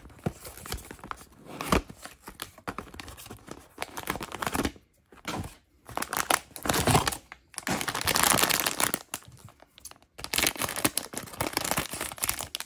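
Cardboard mystery box being opened and a foil blind bag inside pulled out and worked open, crinkling and tearing in stop-start stretches with short pauses between.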